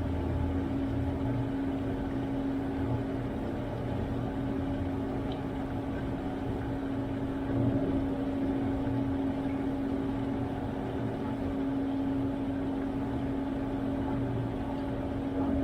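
Washtech UL Premium undercounter commercial dishwasher running near the end of a wash cycle: a steady motor hum over a low rumble, with one brief louder moment about halfway through.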